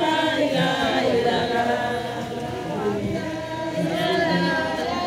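A crowd of women singing together without instruments, many voices in one song.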